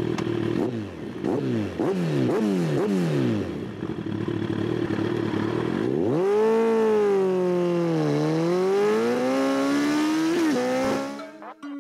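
Motorcycle engine revving, its pitch rising and falling quickly several times, then holding a long note that dips and climbs back before cutting off near the end.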